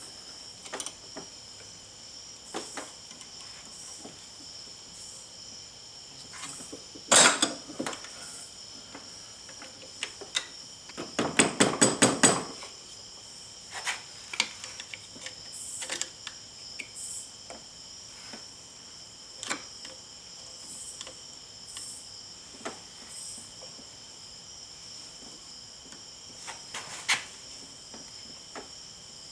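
Metal knocks and clinks from a bench vise, sockets and a wiper arm being handled while a plastic bushing is pressed into the arm. A loud knock comes about seven seconds in and a quick run of about seven knocks just before the middle, with scattered lighter clicks over a steady high-pitched whine.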